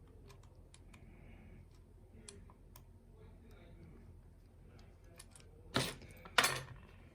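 Faint, scattered small clicks of a lock pick and tension wrench working the pins inside a pin-tumbler challenge lock, then two much louder metallic clacks about six seconds in, half a second apart.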